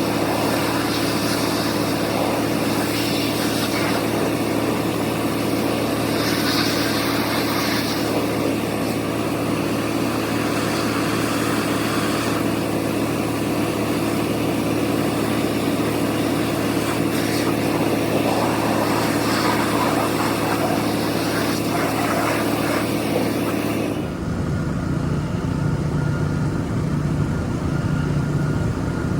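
Pressure washer running with the hiss of its spray. Near the end the hiss cuts off suddenly and a lower, uneven running note is left.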